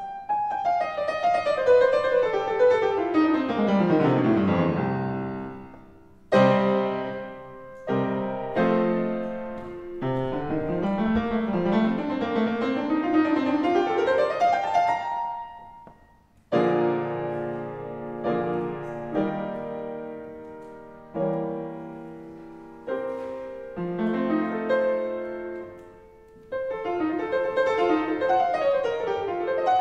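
Solo upright piano playing a slow prelude: a falling run of notes, then chords, a rising run, and struck chords that ring and fade away between phrases.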